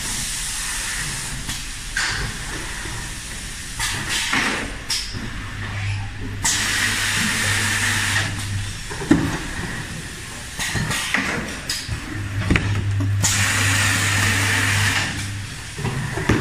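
Automatic carton erector running its cycle: long hisses of compressed air, two of them lasting about two seconds each with a low hum beneath, among shorter hisses and mechanical clacks and knocks as cardboard blanks are pulled open, folded and pushed along.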